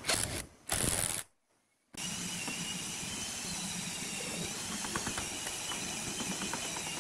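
Cordless power driver running in two short bursts, driving a screw into a pine chair armrest. After a brief break it gives way to a steady hiss of background noise with a few faint ticks.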